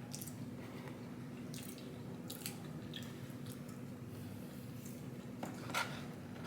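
Close-up eating sounds: soft wet chewing and mouth smacks, with a sharper smack near the end. A steady low hum runs underneath.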